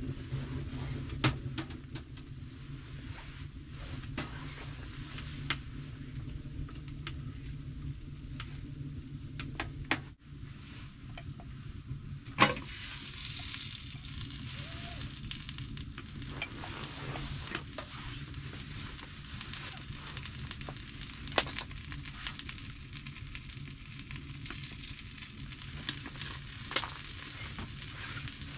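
Food sizzling in a pan on a wood stove while being stirred, with a few sharp clicks scattered through. The sizzle grows louder after a loud knock about halfway through.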